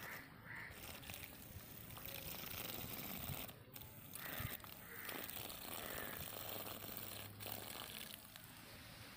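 Small hand-held DC motor spinning a miniature cultivator tine through dry soil, faint, with the hiss of flung dirt.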